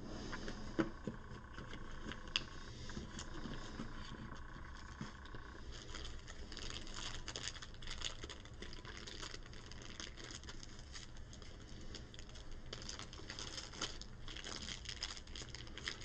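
Crinkling of a small plastic bag holding plastic game tokens as it is handled and opened, after a few light clicks in the first couple of seconds.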